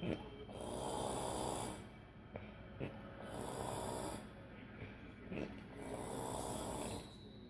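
A woman snoring in a steady rhythm, about one breath every two and a half seconds, three snores in all, with a few short clicks between the breaths.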